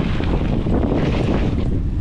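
Wind rushing over the microphone of a mountain bike descending a dirt trail, mixed with the rumble of its tyres rolling over the dirt and small rattling clicks.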